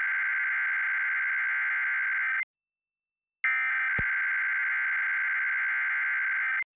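Emergency Alert System SAME header data bursts for a Required Weekly Test: two buzzing digital tone bursts of about three seconds each, a second apart, with a sharp click partway through the second.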